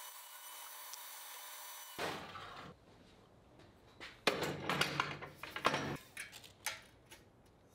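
Faint steady hiss that cuts off abruptly about two seconds in. Then redwood boards are handled and slid across a table saw's cast-iron top, with scraping and light wooden knocks, busiest from about four to six seconds in.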